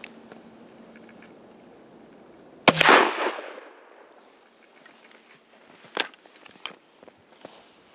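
A single 12-gauge shotgun shot about three seconds in, fired from a birdshot shell cut nearly through above the brass base to make an improvised slug; the report trails off over about half a second. About three seconds later a sharp click as the break-action shotgun is opened and the spent shell is extracted, followed by a few lighter clicks.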